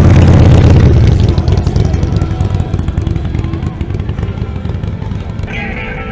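Motorcycle engine rumbling as it rides past close by, loudest in the first second, then fading away.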